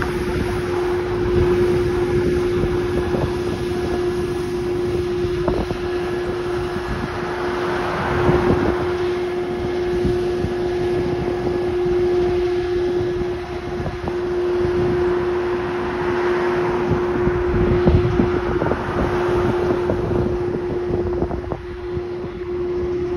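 Street sweeper truck running as it sweeps along the road: a steady hum over a rumbling noise, swelling louder a couple of times.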